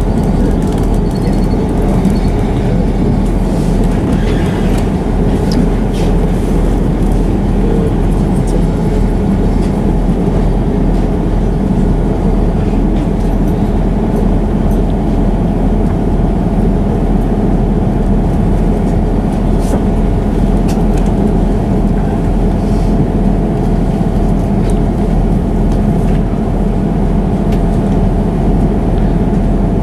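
Class 158 diesel multiple unit 158816 running steadily, heard from inside the carriage: a constant engine and running drone with a few faint clicks.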